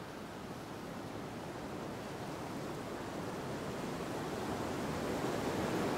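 Ocean surf washing on a beach: a steady rushing wash of waves that fades in and slowly grows louder.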